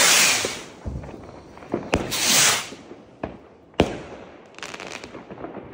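Small fireworks rockets: one whooshes off its launch rack with a hissing rush, and another whoosh follows about two seconds in. Two sharp bangs of bursts overhead come next, the second the louder, then a short crackle.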